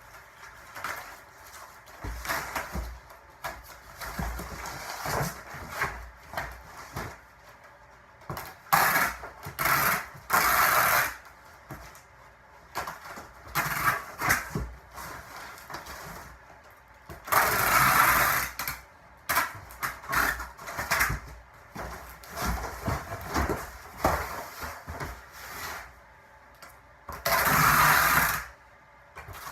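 Cardboard moving boxes being folded and put together, with rustling and knocks of cardboard. Three times, a longer rasping pull of about a second is heard: packing tape being run off the roll to seal the box bottoms.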